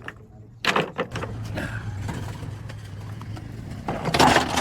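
Motor vehicle running with a steady low hum, and a short knock about two thirds of a second in and a louder rushing noise near the end.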